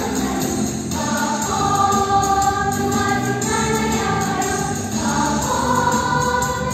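Children's choir singing in unison with held notes, over an instrumental accompaniment.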